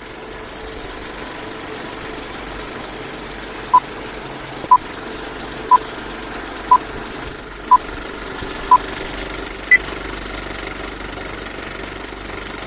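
Film-projector running noise, steady throughout, overlaid with a countdown-leader beep: six short beeps about a second apart, then one higher-pitched beep a second later.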